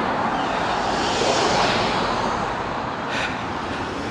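A vehicle passing on the road: a rushing noise that swells about a second in and fades away toward the end.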